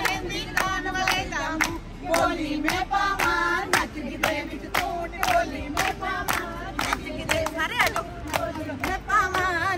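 A group of women clapping together in a steady rhythm, about two claps a second, while singing along in chorus.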